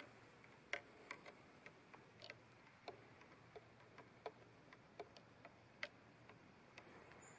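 Near silence broken by faint, irregular small clicks and ticks, about two or three a second.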